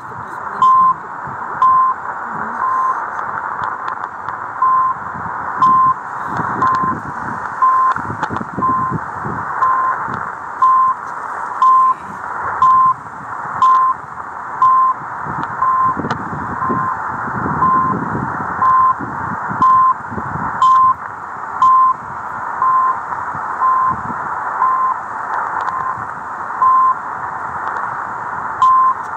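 CHU Canada time signal on 3330 kHz shortwave, heard through a Degen DE1103 receiver in AM mode: a short 1 kHz tone pulse every second, marking the seconds, over steady shortwave hiss that fades up and down.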